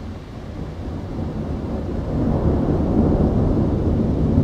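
Thunder from a distant storm rumbling, swelling over about two seconds into a deep, sustained roll.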